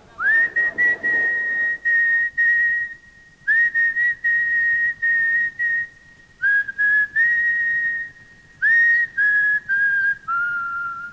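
A person whistling a slow tune in long held notes, each sliding up into its pitch, with short breaks between phrases; in the second half the tune steps lower in pitch.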